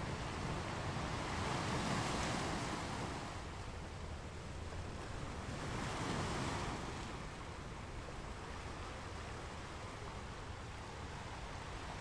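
Sea surf washing in over rocks: a steady rush of water with two louder surges, one about two seconds in and another around six seconds.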